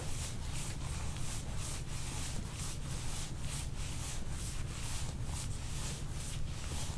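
Rhythmic rubbing strokes of soft-tissue work over skin, about two strokes a second, over a steady low hum.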